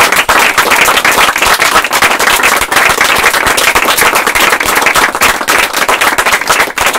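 Audience applauding: a dense, loud, steady patter of many hands clapping close by.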